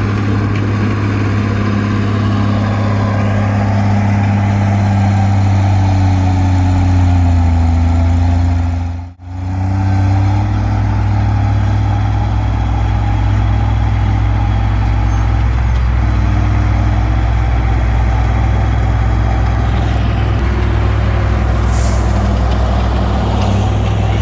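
Komatsu D20P bulldozer's diesel engine running steadily under load, with a slight shift in engine speed. The sound drops out sharply for a moment about nine seconds in, then the engine resumes.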